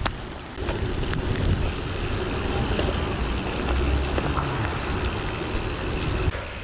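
Wind buffeting a chest-mounted action camera's microphone during a gravel bike ride in heavy rain, a steady rushing noise with a deep low rumble from riding over wet ground.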